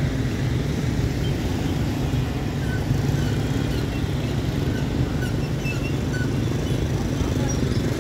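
Steady low rumble of city street traffic, with a few faint, brief high-pitched chirps near the middle.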